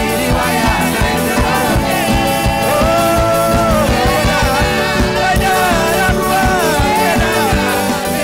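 Live worship band playing an upbeat Papuan songger praise song: a group of singers on microphones over bass guitar and a steady, driving drum beat.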